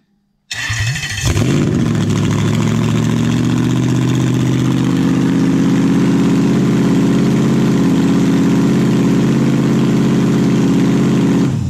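Toyota 1UZ-FE quad-cam V8 started on the starter, catching about a second in and then idling steadily. This is a restart right after the idle-speed stepper motor was reset. The engine sound stops abruptly just before the end.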